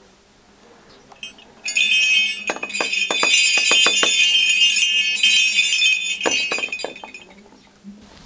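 Old horse-sleigh bells on a strap shaken and jingling, starting about two seconds in and fading out after about five seconds.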